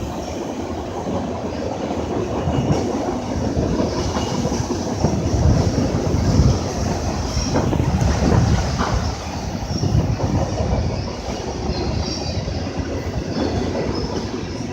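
A train rolling past on the rails: a steady rumble and clatter of wheels that swells in the middle and eases slightly near the end.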